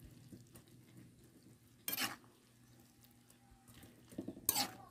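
Metal spoon stirring and scraping through a wok of cooking water spinach and pork, with two louder scraping strokes against the aluminium pan, about two seconds in and again near the end.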